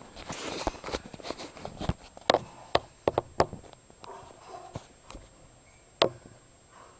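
Hand tools and metal parts being handled and knocked during washer repair work. A rustle starts it off, then comes a run of sharp clicks and clacks, with the loudest knocks about two and a half seconds in and again near six seconds.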